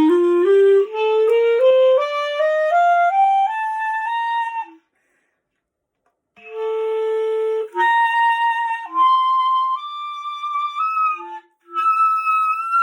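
A wooden Noblet Paris B-flat clarinet, its cracked upper joint repaired, played up a quick rising scale of short notes. After a short pause it plays a held note and then climbs more slowly through single higher notes.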